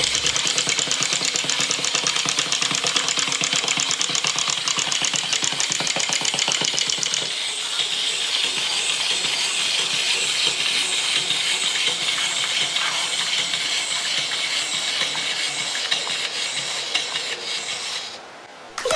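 Wind-up toys (a walking robot and chattering teeth) running across a tabletop, their clockwork motors whirring with a fast, even rattle of clicks and plastic feet tapping. The rattle changes about seven seconds in and winds down just before the end.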